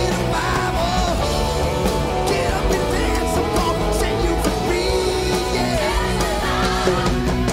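Live rock band playing at full volume: drums, electric guitar and saxophone, with a male lead singer.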